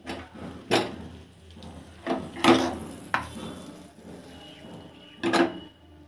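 Steel plate knocking and clanking against the metal grate of a gas stove as it is lifted off and set back down: a handful of sharp metallic knocks with brief ringing, the loudest about two and a half seconds in and another near the end.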